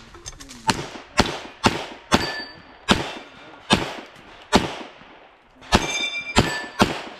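A competition pistol with a red-dot optic firing a fast string of about ten shots, mostly about half a second apart, with one longer pause about five seconds in. A few shots are followed by the ring of steel plates being hit.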